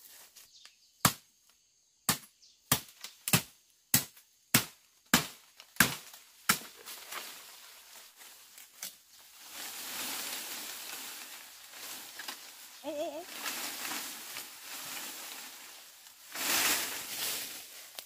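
About ten sharp strikes of a hand tool in quick succession, roughly two a second, followed by several seconds of steady rustling noise that swells near the end.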